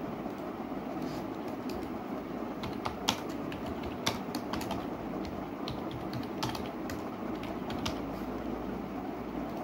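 Typing on a slim computer keyboard: irregular key clicks, with two louder keystrokes about three and four seconds in, over a steady background hum.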